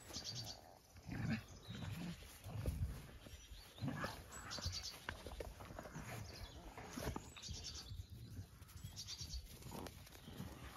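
Soft footsteps and brushing through grass, with young puppies giving small squeaks and whimpers as they scamper along.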